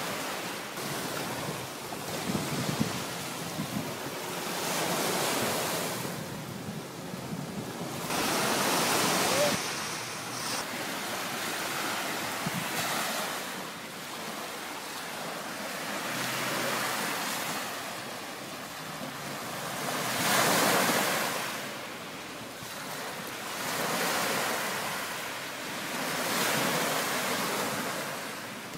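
Small waves breaking and washing up on a sandy beach, surging and fading every few seconds, with wind buffeting the microphone.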